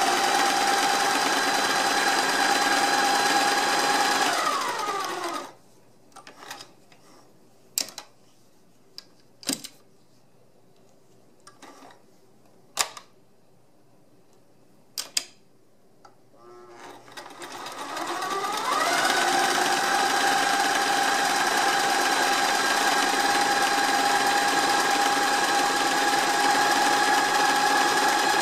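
Sears Kenmore 1050 sewing machine running at a steady speed stitching fabric, winding down to a stop about five seconds in. A quiet pause with a few sharp clicks follows, then the motor speeds back up at about seventeen seconds and runs steadily again.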